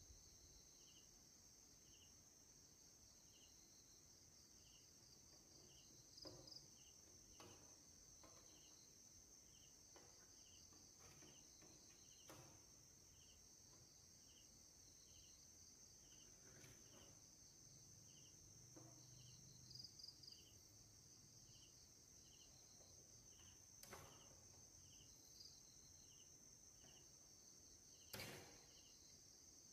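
Faint insect chirping, a short call about once a second, over a steady high-pitched background. A few sharp clicks and knocks of pliers against the plastic TV cabinet; the loudest comes near the end.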